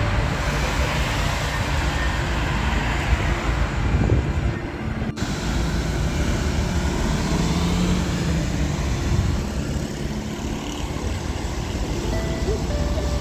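City street traffic: buses and cars running past on rain-wet roads, a steady rush of engines and tyres. It drops out abruptly for a moment about five seconds in.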